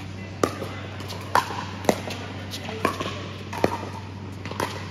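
Pickleball rally: paddles striking a hard plastic ball, about six sharp pops spaced roughly a second apart.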